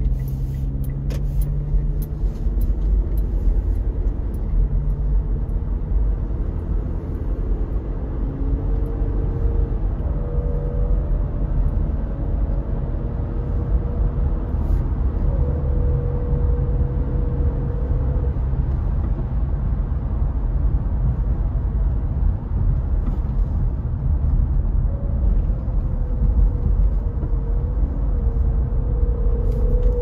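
Road and engine noise heard inside a moving car's cabin: a steady low rumble, with a faint wavering higher tone that comes and goes.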